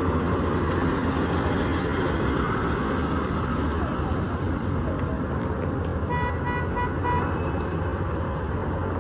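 Steady road traffic noise, with a car horn giving a quick series of about four short beeps about six seconds in.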